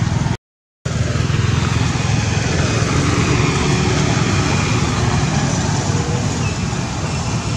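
Steady, loud outdoor rumble with no clear single event, of the kind made by road traffic or wind on the microphone. It cuts out completely for about half a second near the start.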